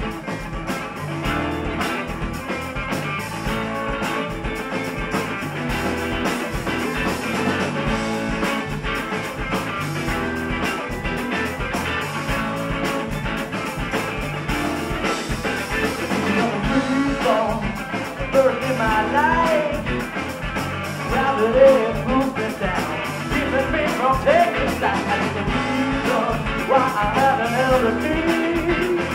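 Live rock band playing a song on electric guitars and drum kit, with dense strummed chords over a steady beat.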